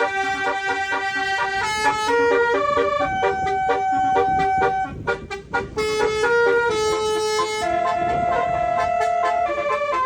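Twelve-trumpet telolet musical air horn playing a tune of held notes that step from pitch to pitch. A brief run of quick, choppy toots comes about halfway through.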